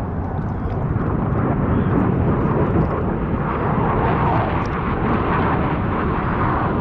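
Military jet flying a low pass over the water: a steady rushing jet engine noise that grows louder about three seconds in.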